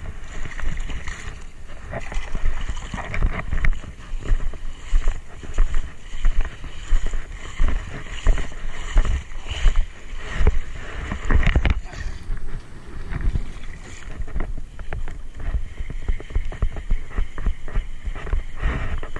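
Shallow seawater sloshing and splashing irregularly around a wading angler's legs.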